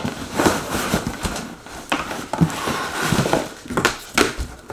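Cardboard packaging being handled as a box is emptied out: rustling and scraping of cardboard inserts, with a series of sharp knocks and clicks.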